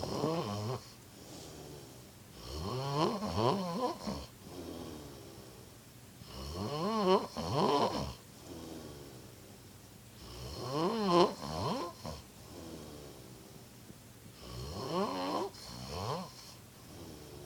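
A man snoring loudly in deep sleep: long snores that rise in pitch, one about every four seconds, with quieter breaths between them.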